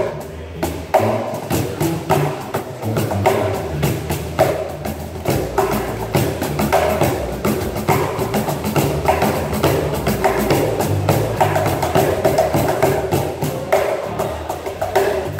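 Two cajóns and an electric bass guitar playing together: fast, busy slaps and taps on the cajóns' wooden faces over a line of low plucked bass notes.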